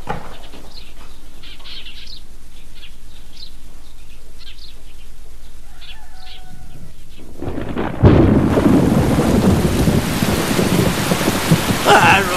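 Small birds chirping sparsely, then about eight seconds in a sudden loud thunderclap breaks into the steady rush of heavy rain.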